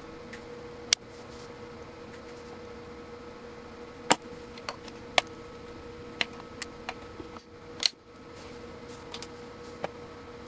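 A series of sharp clicks and snaps from handling a multimeter: test-lead plugs worked in and out of its terminals, over a steady electrical hum.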